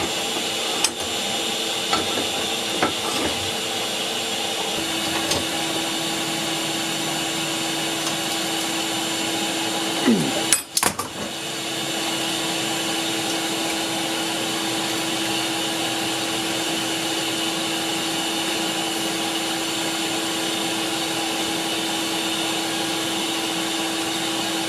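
Steady drone of the brake drum forge's air blower, with a few sharp hammer strikes on the steel in the first few seconds. About ten seconds in there is a brief louder clatter and a falling tone, after which the drone's pitch settles slightly lower.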